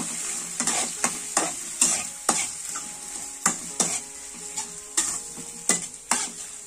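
Metal slotted spatula scraping and tapping against a pan about twice a second as spice paste, bay leaves, kaffir lime leaves and lemongrass are stir-fried in hot oil, over a steady sizzle.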